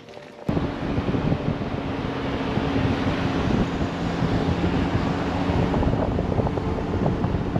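Toyota Troopcarrier 4x4 driving along a winding road: steady engine hum under road noise and wind on the microphone, starting suddenly about half a second in.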